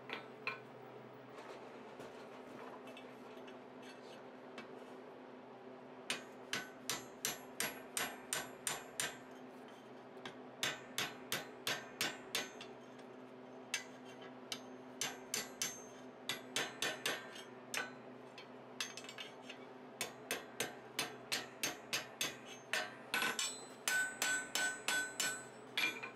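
Blacksmith's hammer striking an iron bar over the horn of a small stake anvil, bending a loop into a ring. Light blows come in runs of about three a second with short pauses between, and there is a faint ring of the metal near the end.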